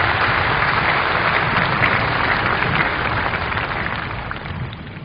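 A very large outdoor crowd applauding, a dense patter that dies away near the end.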